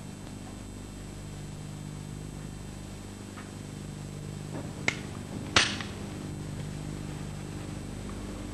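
Steady low hum with a faint high whine under a quiet pause, broken about five seconds in by two short sharp clicks, the second louder.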